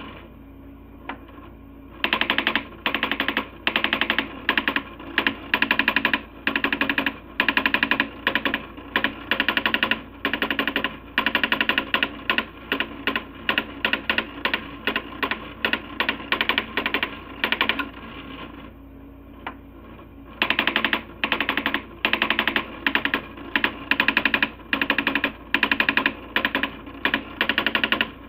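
Coleco Adam SmartWriter daisy wheel printer hammering out banner graphics: rapid strikes in bursts of about half a second with short gaps between. The strikes pause for a couple of seconds near the start and again about two-thirds through.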